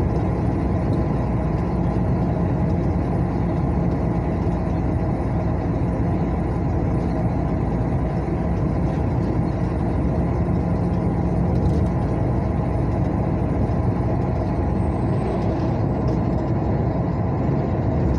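Steady engine and road noise of a vehicle driving along a highway: a constant low drone with no change in pace.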